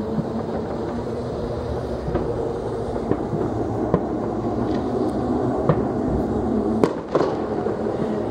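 Fireworks going off: a steady low rumble with about six sharp firecracker-like cracks scattered through it, the strongest two close together near the end.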